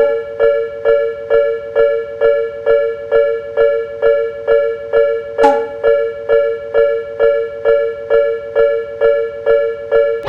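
Japanese railway crossing warning bell (the "kan-kan" of a fumikiri) ringing steadily, a bright pitched clang repeating about twice a second, signalling that a train is approaching. About halfway through comes one short falling swish.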